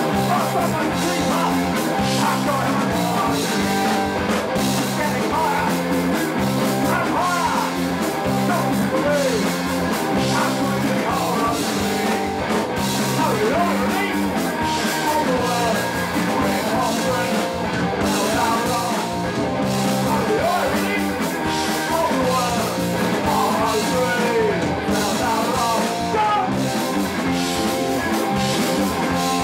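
Live punk rock band playing: guitars, bass and drums with a singing voice, loud and steady throughout.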